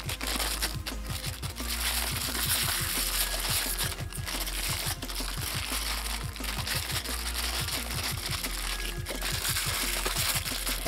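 Clear plastic parts bags crinkling and rustling as hands handle them and cut them open, over background music.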